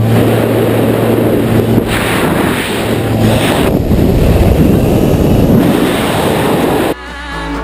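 Loud wind rushing over the microphone in skydiving freefall, with a steady aircraft engine drone fading out in the first couple of seconds after the exit from the plane. Music cuts in abruptly near the end.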